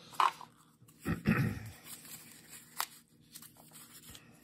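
A small brown-paper packet being picked up and handled on a rubber mat: a few light knocks and paper rustles, with a short low sound about a second in.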